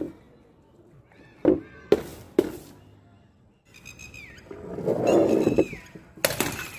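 Three sharp pops in quick succession about a second and a half in: balloons bursting on a wooden board. A pitched sound then falls in pitch twice, and near the end a small glass Coca-Cola bottle smashes on concrete with a loud crash.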